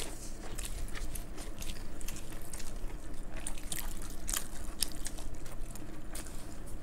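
Close-up chewing and wet mouth sounds of people eating soft, saucy food with their hands: irregular smacks and clicks, with fingers squishing through gravy.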